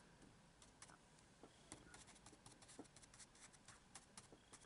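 Faint, irregular little taps and scratches of a small paintbrush dabbing on watercolour paper.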